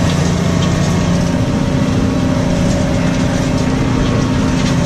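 New Holland T6.155 tractor's diesel engine running steadily under load, pulling a plough.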